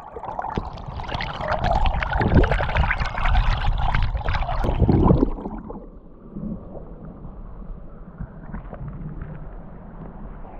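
Fast-flowing Ganges river water rushing and churning in full flood, loud for about the first five seconds and then quieter.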